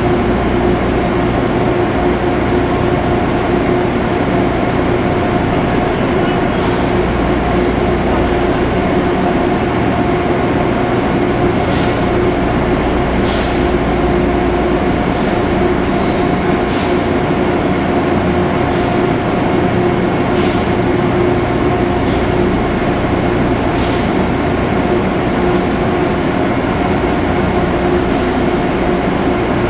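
Steady, loud drone of textile mill machinery, with a constant hum at two pitches. In the middle comes a run of short, sharp high sounds about every one and a half seconds.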